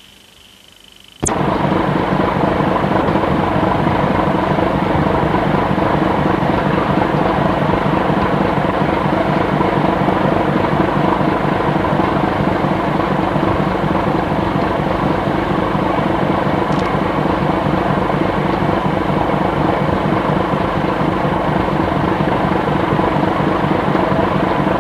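Ship's diesel engine running steadily with a fast, even throb, starting suddenly about a second in after a faint hum.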